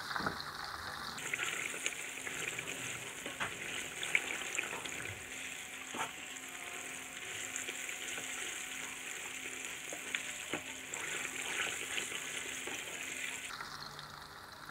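Chicken-and-shrimp patty deep-frying in hot oil in a pan: steady sizzling and crackling, with a few light clicks of a spatula against the pan. The patty, cooked through, is lifted out of the oil near the end.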